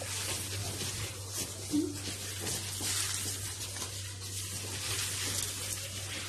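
Beaten egg-and-milk mixture sizzling as it is poured into a hot frying pan on a gas flame: a steady hiss with faint crackling.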